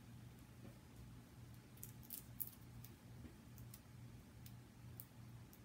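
Faint small clicks and rustles of small cut-paper pieces and adhesive being handled and pressed onto a card, a few scattered ticks between about two and five seconds in, over a low steady hum.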